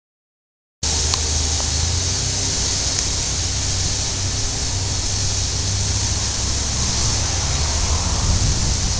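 Wind buffeting the camera microphone: a steady low rumble under a rushing hiss, starting abruptly about a second in after silence.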